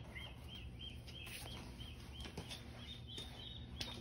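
A small bird chirping over and over, about four short chirps a second, over a faint steady low hum.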